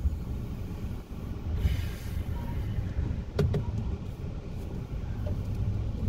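Steady low rumble of a car heard from inside the cabin, with a brief hiss about two seconds in and a couple of sharp clicks about three and a half seconds in.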